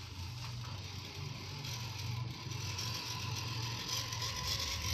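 Electric motor and geared drivetrain of a 1/10-scale RC Jeep Rubicon crawler running as it crawls over dirt and stones: a steady mechanical whirr with a faint whine, growing louder over the few seconds.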